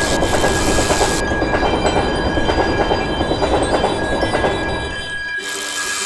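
Train passing with a rhythmic clatter of wheels over the rails, stopping about five seconds in, over a steady high tone.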